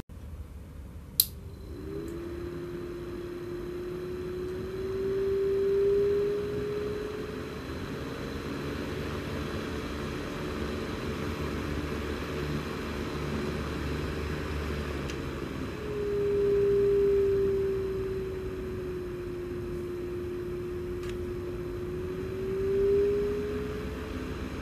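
Cordless rechargeable fan switched on with a click, then its motor and blades running with a steady hum. The pitch rises and falls, growing louder as the speed knob is turned up.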